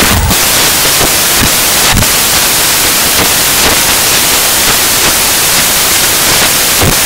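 Loud, steady static hiss with a few short crackles, one near the start and one about two seconds in.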